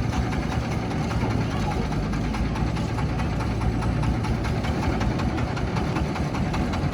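Heavy diesel engine running steadily at an even, low pitch, with a fast clattering beat.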